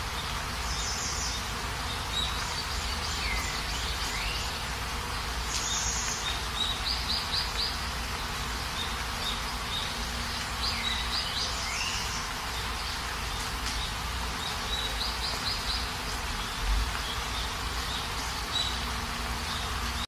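Steady rain in the countryside, an even hiss throughout, with birds calling over it: repeated high chirps, short rapid trills, and a swooping call twice.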